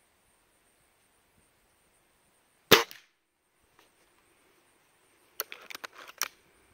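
A shot from a Gamo Swarm Fox .22 break-barrel air rifle: one sharp crack a little under three seconds in, with a short ring. About two and a half seconds later comes a quick run of clicks and clacks as the barrel is broken open to cock the rifle for the next shot.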